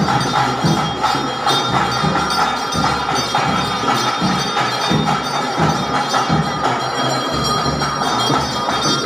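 Loud live procession music of beating drums and ringing bells at a shrine ritual, with steady held high tones over a regular beat.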